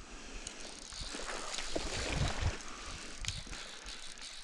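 Fly reel's click-and-pawl drag clicking steadily while a hooked silver salmon is played on the fly rod.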